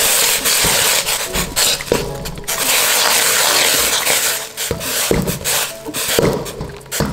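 Metal ladle stirring chicken pieces in boiling water in a stainless steel mixing bowl, scraping along the bowl. In the last few seconds the ladle knocks against the steel several times.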